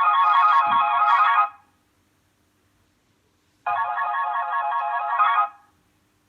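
Samsung Galaxy Y ringtone: a fast electronic warbling trill rings for about two seconds, stops for about two seconds, then rings again in the same way.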